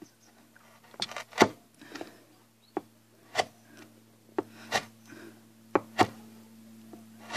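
A 32mm butt chisel cutting and chipping into wood, heard as about nine or ten sharp knocks at uneven intervals.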